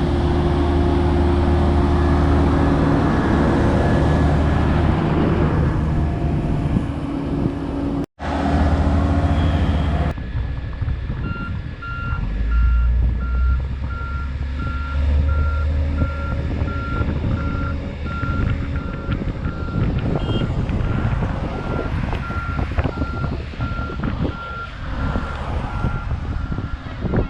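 Heavy diesel construction machinery running with a steady low rumble; from a little before halfway, a reversing alarm beeps steadily, evenly spaced, over the engine.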